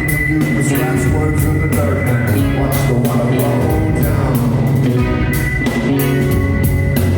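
Live rock band playing an instrumental passage: drum kit keeping a steady beat under bass and guitar, with one high tone held through most of it that stops near the end.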